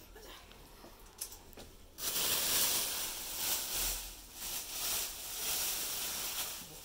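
Thin plastic bag rustling and crinkling as it is pulled off a boxed subwoofer, faint at first and loud and continuous from about two seconds in.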